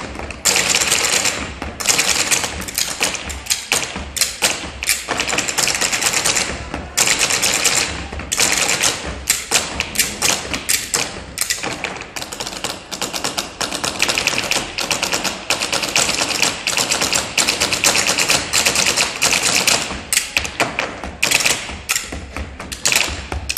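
A percussion ensemble playing rhythm on a dinner table: a dense, fast run of knocks and taps that goes on without a break.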